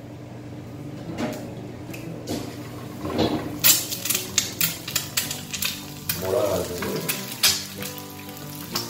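An egg is cracked into a hot frying pan, then from about three and a half seconds in it sizzles and crackles in a generous layer of hot oil, with frequent sharp pops of spattering oil.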